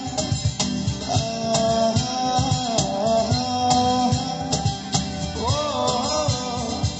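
Live song: a man singing into a microphone over acoustic guitar and cajon, with steady low beats. About five and a half seconds in, the voice holds a long wavering note.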